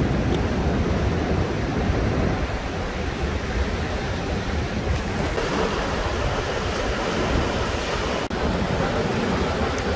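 Ocean surf breaking steadily, with wind noise on the microphone.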